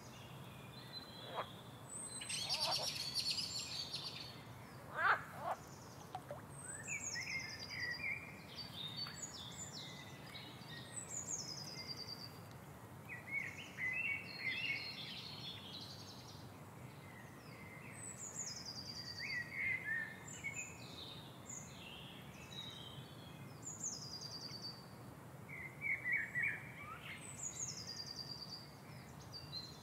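Several songbirds singing and chirping. One repeats a short high phrase that falls in pitch every few seconds, over a faint steady background noise.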